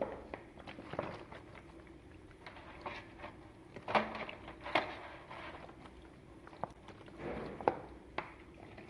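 Scattered, irregular light knocks and clicks of tools and hard objects being handled on a workbench, the loudest about four seconds in, just before five seconds and near eight seconds.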